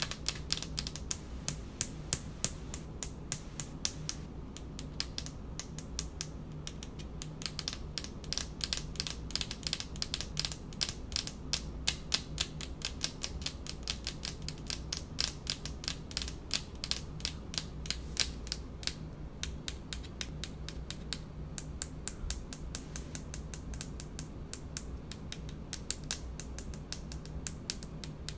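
Long fingernails tapping on a hard speckled countertop, a rapid, continuous run of sharp clicks, several a second, with no pause.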